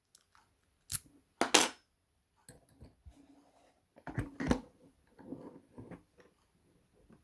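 Sharp metallic clicks and light clatter from a pin tumbler lock and its metal key or tools being handled: two loud clicks near the start, a bunch of knocks about four seconds in, and small rattles between.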